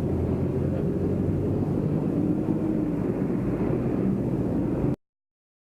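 Motorcycle engine running under a steady low rumble of muffled wind noise on the camera microphone. The sound cuts off abruptly about five seconds in.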